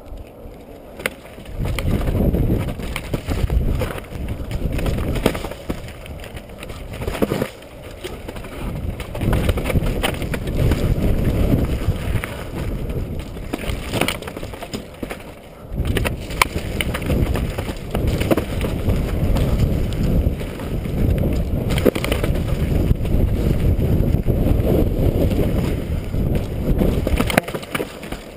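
Wind rumbling on a helmet-mounted GoPro's microphone as a downhill mountain bike runs down a rocky dirt trail. The rumble swells and eases every few seconds, and it is crossed by frequent clicks and knocks of the bike rattling over rocks.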